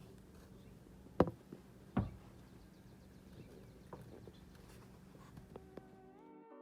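Two sharp knocks, the first about a second in and the second about two seconds in, over a faint steady hum. Guitar music begins near the end.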